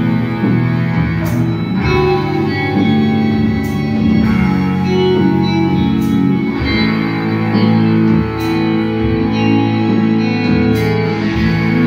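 A live band playing: electric guitars and bass hold sustained, organ-like chords over drums, with a cymbal strike about every second or two.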